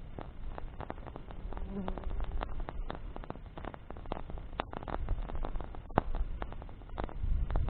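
Wood campfire crackling and popping in irregular sharp snaps, with a flying insect buzzing briefly about two seconds in.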